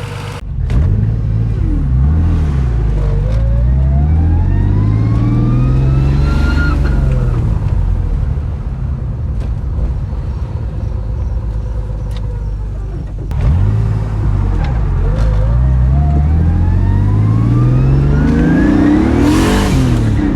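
Turbocharged BMW E36's S52 straight-six under hard acceleration: the revs climb, fall away, then climb again, with a burst of hiss near the end.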